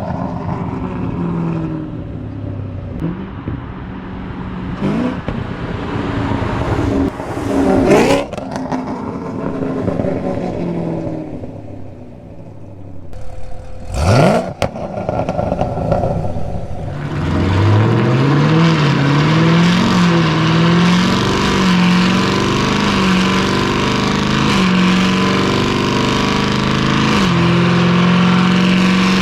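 Chevrolet Camaro ZL1's supercharged 6.2-litre LT4 V8 exhaust, revving in short sweeps and then, about halfway through, pulling hard and settling into a steady drone with a few brief dips in pitch.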